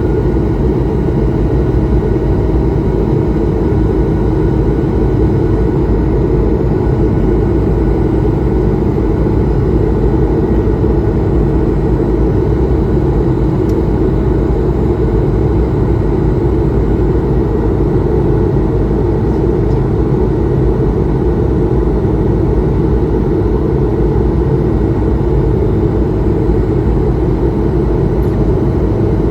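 Steady engine and airflow noise heard inside the cabin of an Airbus A220-300 in flight, from its Pratt & Whitney PW1500G geared turbofans under power. It is a loud, even rumble with faint steady tones above it.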